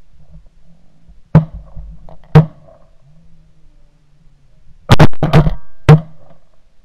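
Shotgun blasts from several hunters shooting at geese: two shots about a second apart, then a rapid volley of four or five shots near the end.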